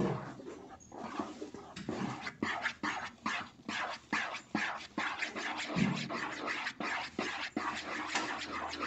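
Spatula stirring and scraping a thick, foamy glycerin soap mixture in a non-stick frying pan, in rhythmic strokes about two to three a second.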